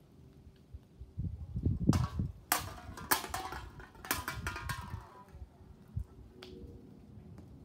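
Cans falling off a stepladder and clattering onto pavement: several sharp metallic hits with ringing, loudest between about two and five seconds in, after a low rumble.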